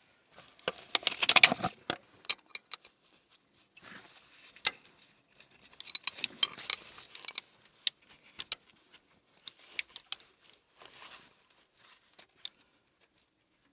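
Metal hand tools clicking and clinking in short clusters, with bright metallic rings, about a second in and again around six to seven seconds in, as the coolant temperature sensor is threaded back into the engine.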